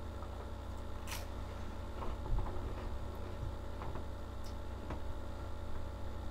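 Steady low electrical hum, with a few faint crunches of saltine crackers being chewed, the sharpest about a second in.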